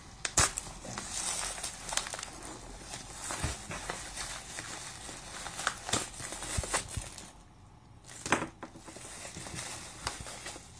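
Plastic mailing bag crinkling and crackling as it is pulled open by hand, with many sharp clicks. There is a short lull about two-thirds of the way through, then a sharp crack.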